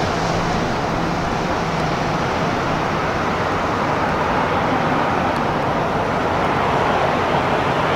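Embraer EMB-120 Brasilia twin-turboprop airliner landing, its engines and propellers giving a loud, steady roar as it flares and touches down.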